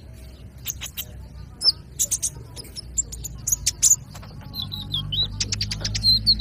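Young brown-throated sunbird (kolibri ninja) calling: a string of short, sharp high chirps, then a quick twitter about four and a half seconds in, and a warbling phrase starting near the end.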